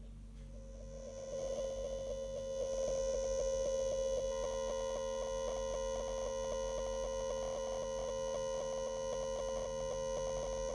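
Steady whine from a FeiyuTech Vimble One smartphone gimbal, carried by a run of regular faint ticks and setting in about a second in. This is unwanted noise the gimbal puts onto the phone's video recording.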